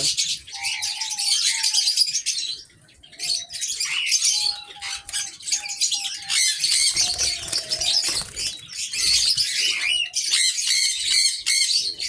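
Busy, high chirping and twittering of many small cage birds, with short low cooing notes from diamond doves coming and going through it.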